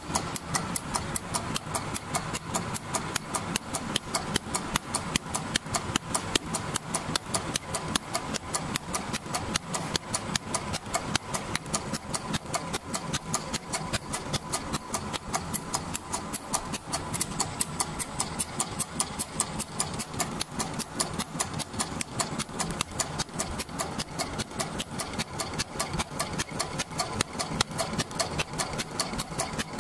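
Richpeace automatic sewing machine running a zigzag stitch: a steady, rapid, even ticking of the needle mechanism under a constant motor hum.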